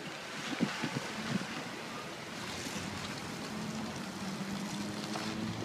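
Passenger car of a circus train rolling slowly past at a grade crossing: a steady rushing rumble, with a few knocks from the running gear in the first second and a half. A low steady hum comes in about two seconds in and cuts off near the end.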